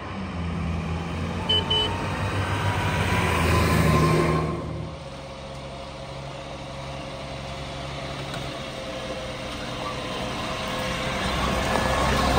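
Military truck's diesel engine running as it drives, building in loudness over the first four seconds with a slowly rising whine over it. The sound drops and changes about five seconds in, then builds again toward the end. Two short high beeps come about a second and a half in.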